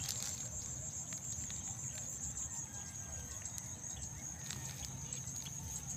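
Steady high-pitched insect trill over a faint low rumble, with scattered light ticks and rustles from rice plants being brushed.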